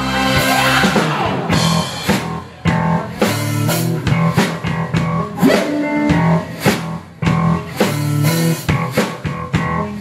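Rock band playing live: electric guitar, bass guitar and drum kit together, in phrases broken by brief drops.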